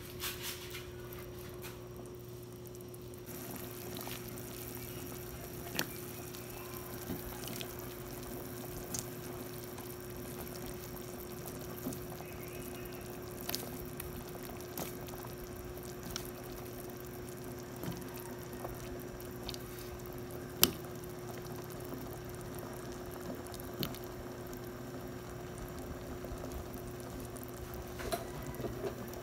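A pot of chicken tinola broth simmering, with small drips and splashes of liquid over a steady low hum. A few sharp clicks are scattered through it.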